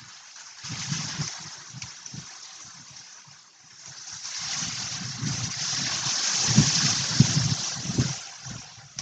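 Wind gusting through a bamboo grove: leaves rustle in two swells, the second longer and louder, with low rumbling buffets of wind on the microphone.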